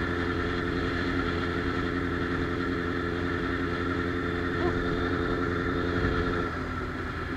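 Motorcycle engine running steadily under way. About six and a half seconds in, the engine note drops and gets quieter as the throttle is eased off.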